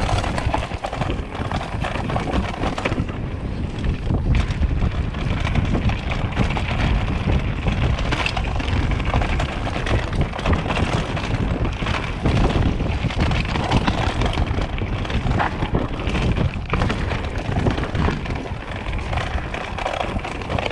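Mountain bike riding fast over a rocky dirt trail: tyres crunching and the bike rattling, with frequent small knocks, under steady wind noise on a chest-mounted action camera's microphone. The camera sits loosely and bounces on its chest mount.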